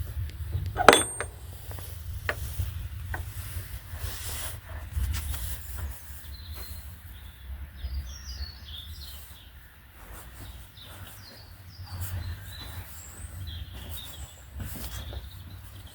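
Small birds giving short, high chirping calls on and off over a steady low rumble, with one sharp knock about a second in.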